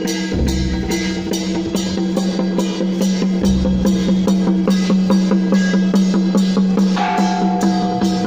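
Temple procession percussion band playing a fast, even beat of about four strikes a second, with a deep drum coming in now and then and a held low tone underneath; a higher tone joins near the end.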